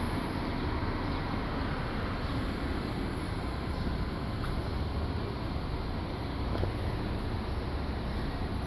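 Steady, even background rumble, strongest low down, with no distinct events.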